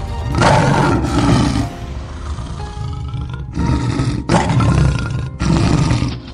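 Cartoon sound effects of big animals roaring: one roar about half a second in, then several more in the second half, over background music.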